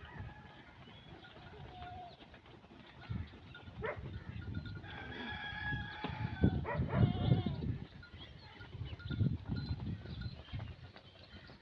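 A herd of cattle, sheep and goats walking on a dirt lane, hooves scuffing and thudding unevenly. A rooster crows about five seconds in.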